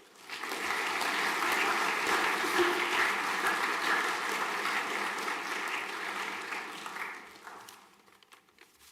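An assembly audience applauding: a dense wash of many hands clapping that starts at once, holds steady, then dies away over about a second near the end.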